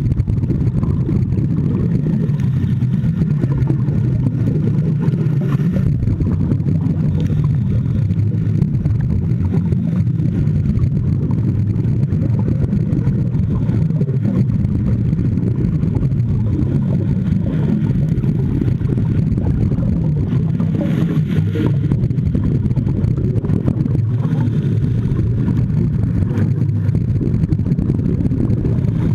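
Steady low underwater rumble heard through an underwater camera housing, with occasional bursts of scuba divers' exhaled bubbles from their regulators.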